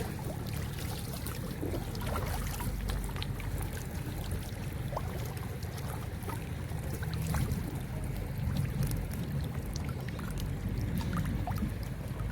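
River water running and trickling, with a steady low rumble of wind on the microphone and scattered small clicks and splashes.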